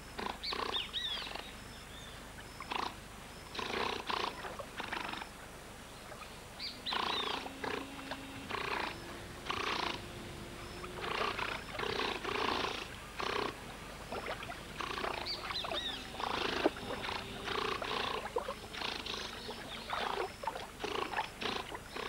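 A group of giant otters calling: a long string of short, harsh snorts and screams, often overlapping, every half second to a second, with a few brief held low growls among them.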